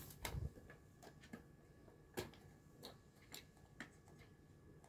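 Small plastic clicks and taps from a miniature toy fridge as its freezer door is opened and a tiny plastic container inside is handled: a few soft knocks at the start, a sharper click about two seconds in, then several fainter ticks.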